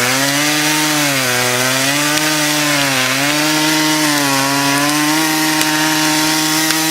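Two-stroke chainsaw running at high throttle, a steady engine whine whose pitch dips slightly a few times.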